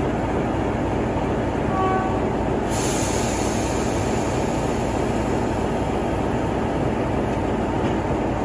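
Diesel-hauled train running on the line: a steady, loud rumble of engine and wheels on the rails. A high hiss joins suddenly about three seconds in and carries on.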